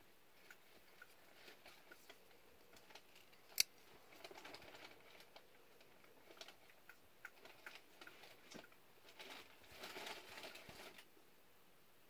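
Quiet handling of a Schrade 106S linerlock folding knife: light ticks throughout, and a single sharp click a few seconds in as the partially serrated blade is opened and the liner lock engages. Soft rustling of fingers on the textured G-10 handle comes twice, briefly.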